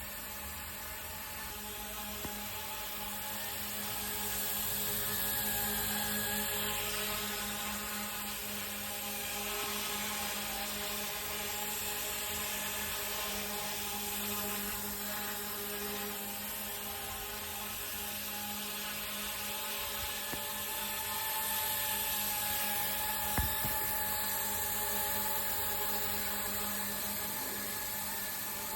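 Goosky E2 RC helicopter's electric motor and rotor running steadily: a continuous whine and hum whose pitch drifts only slightly. A single sharp click sounds about 23 seconds in.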